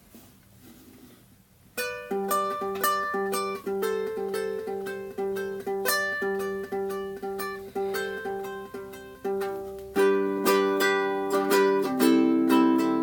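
Soprano ukulele strung with Fremont Blackline low G strings being fingerpicked, a run of plucked notes starting about two seconds in and getting louder about ten seconds in. The strings are freshly fitted and drifting out of tune.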